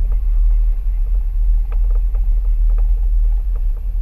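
Mercedes-Benz ML350 BlueTec SUV driving on a dirt track: a steady low rumble with scattered small knocks and clicks from the tyres on dirt and stones.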